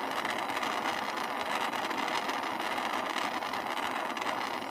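Gas torch flame burning with a steady hiss, firing vitreous enamel on a copper piece from below as the enamel melts.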